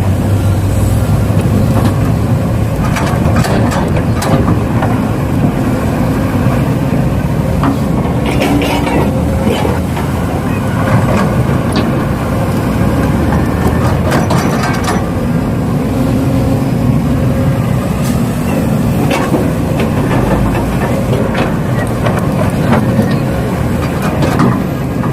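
Radio-controlled model construction machinery at work: steady motor and gear running with scattered clicks and clatter.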